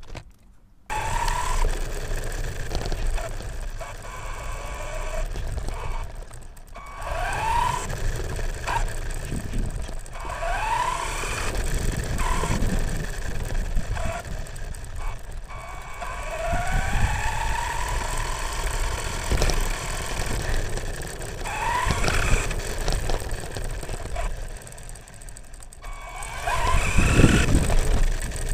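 Electric motor of a 9115 RC monster truck whining up in pitch again and again as the truck accelerates in short bursts, over a rough rumble of the tyres and chassis on uneven ground. It is heard close up from a camera riding on the truck, and the loudest burst comes near the end.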